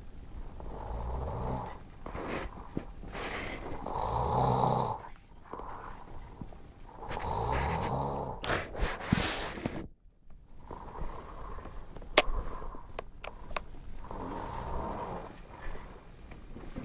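A sleeping man snoring so loud, a rough rattling snore on each breath, recurring about every three seconds. A single sharp click about twelve seconds in.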